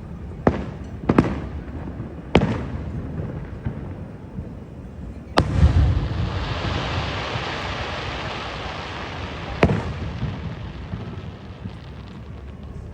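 Aerial fireworks shells bursting: a few sharp bangs, then a big boom about five seconds in followed by several seconds of continuous crackling, and one more bang near the end.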